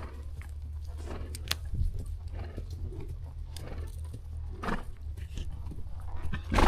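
A horse walking on a trail, with scattered irregular hoof falls and tack creaks over a steady low rumble on the microphone. A louder burst comes right at the end.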